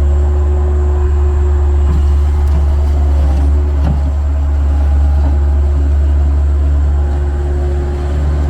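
Engine running steadily, a deep even drone with a few faint knocks about two to four seconds in.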